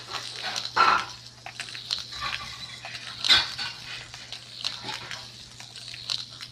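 A cat batting at a plastic track-ball toy: scattered clicks and knocks of hard plastic, with two louder sharp sounds, one about a second in and one just past three seconds, over a steady low hum.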